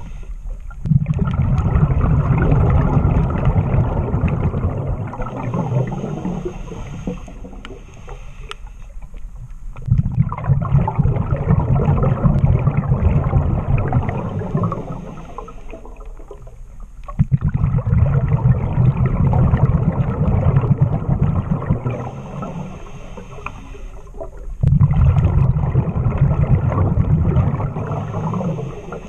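Scuba diver breathing through a regulator underwater: four long rushes of exhaled bubbles, one about every seven seconds, with a quieter high hiss of inhaling through the regulator between them.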